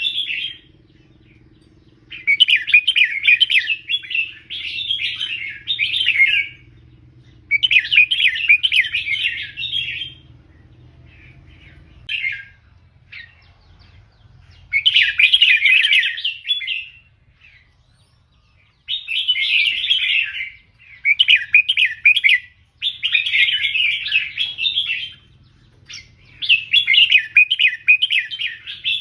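Red-whiskered bulbul singing: a string of loud, quick warbling song phrases, each one to two seconds long with short pauses between them, about nine in all.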